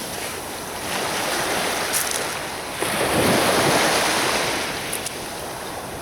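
Sea waves washing onto a beach, with wind on the microphone; a wave swells up about three seconds in and then recedes.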